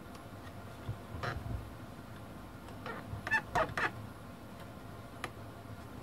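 Rubber soft-key membrane of an HP 54645 oscilloscope squeaking against the plastic front panel as it is stretched and pushed into its locating slots. There is a short falling squeak about a second in, then a cluster of short squeaks around three to four seconds in, with faint plastic clicks from the handling.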